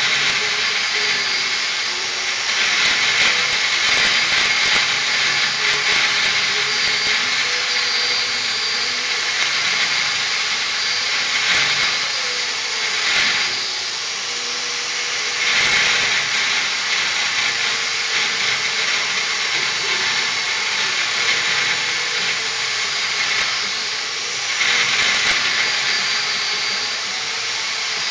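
Power tool grinding metal off a spinning snowmobile counter sprocket: a steady, loud hissing grind that swells louder several times as the cut bites harder.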